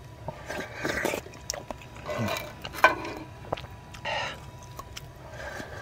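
A person slurping soup from a wooden ladle, several short slurps with breaths between.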